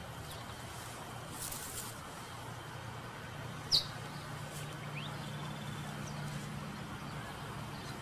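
Quiet outdoor ambience over a steady low hum, with a brief rustle about a second and a half in and a single short, sharp, high bird chirp near the middle, followed by a fainter rising chirp.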